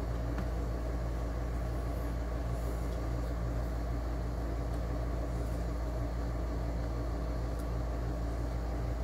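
Steady low electrical hum with a faint background hiss. A few faint light taps come through as the small plastic scale and the knife are handled.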